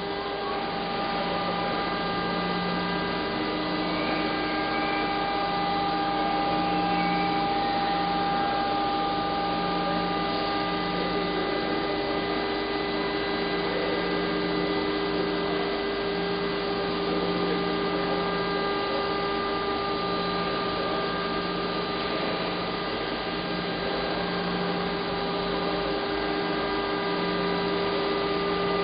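Steady hum of automated car-door assembly machinery: an even mechanical hiss with several steady tones on top, the lowest one pulsing slowly.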